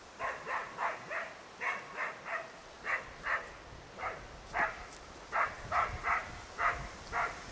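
Young springer spaniel barking repeatedly at wild boar, a steady string of short barks about two or three a second: the dog baying boar in a training enclosure.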